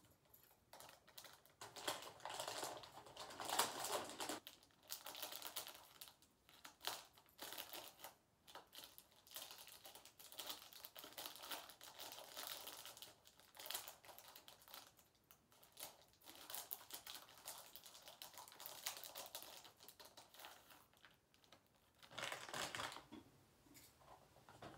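Clear cellophane sweet bag crinkling and crackling in irregular bursts as it is handled and cut open, with short sharp clicks among the rustling.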